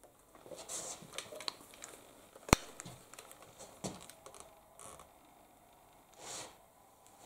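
Handling noises: light rustles and small clicks, with one sharp click about two and a half seconds in.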